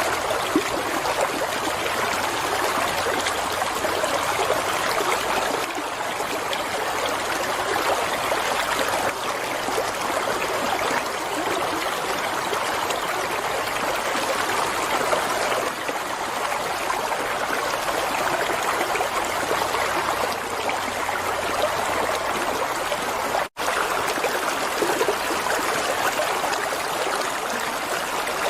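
Water flowing and trickling steadily, like a running stream. The sound cuts out for an instant about three-quarters of the way through.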